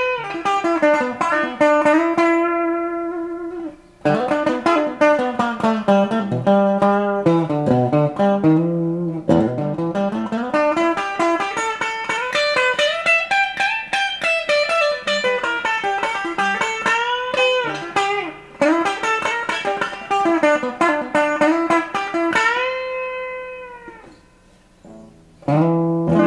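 Reissue '72 Thinline Telecaster played clean through its bridge Wide Range humbucker: melodic single-note lines mixed with chords and string bends, a chord left to ring out and fade, then a final chord struck near the end.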